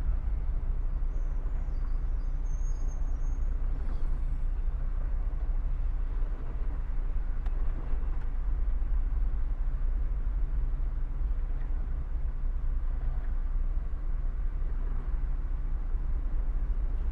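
Car driving along a city road: a steady low rumble of road and engine noise, with a faint high squeal about two seconds in.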